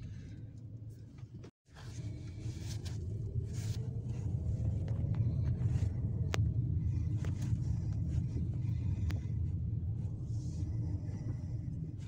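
Car driving, with a steady low rumble of engine and road and a faint engine tone rising slowly. The sound cuts out completely for a moment about one and a half seconds in.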